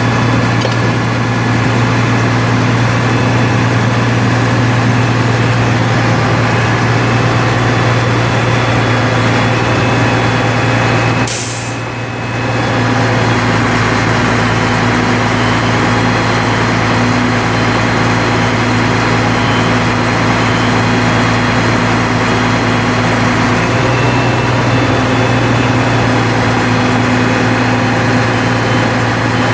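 Caterpillar 3306 inline-six turbo diesel running steadily, driving the crane's hydraulics through the PTO while the knuckle boom is unfolded. A short sharp hiss cuts in about eleven seconds in, and the engine's note changes slightly about two-thirds of the way through.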